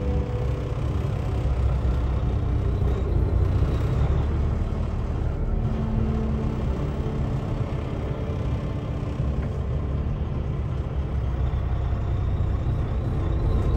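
Steady low engine and road rumble heard from inside a truck cab as the truck drives slowly.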